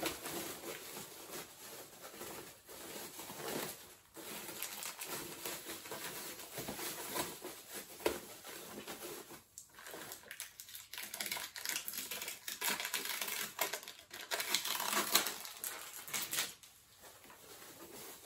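Unboxing packaging being handled: irregular rustling and crinkling with light clicks and knocks, as the contents of the box are taken out and sorted through.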